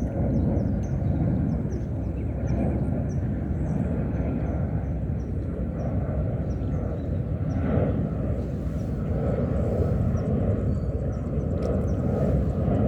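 Steady low rumbling outdoor noise, with faint short high chirps repeating several times a second during the first few seconds.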